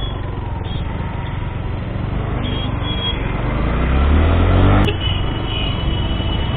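Motorcycle engine running under way in traffic, with wind noise on the microphone. About three and a half seconds in the engine revs up, rising in pitch, then drops off abruptly with a sharp click near five seconds.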